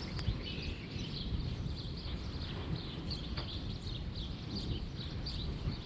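Low, steady rumble of strong wind around the building, with small birds chirping over and over.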